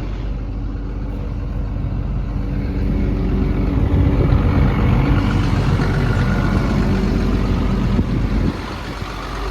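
XCMG XE210CU excavator's 6.7-litre Cummins diesel running steadily at idle, growing louder about three seconds in and dropping back near the end.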